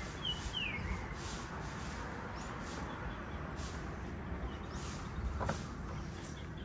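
Outdoor ambience: a steady low rumble, with a bird giving two short falling whistles near the start.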